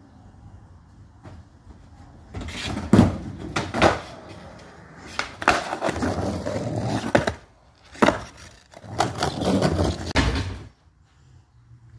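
Skateboard wheels rolling over rough concrete in three runs, each broken by sharp clacks of the board's deck and tail hitting the concrete and curb.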